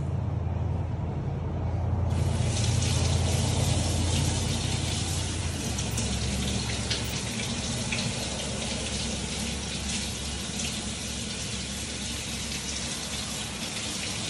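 Kitchen tap running into a sink, the water splashing over fish fillets as they are rinsed by hand. The hiss of the water gets fuller about two seconds in, then holds steady.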